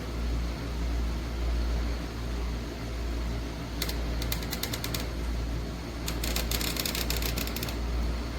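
A steady low hum with a rushing haze over it, and two spells of rapid clicking, about four seconds in and again from about six seconds.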